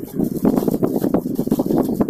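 Plastic courier mailer bag crinkling and rustling in a dense, irregular crackle as it is handled and its contents are pulled out.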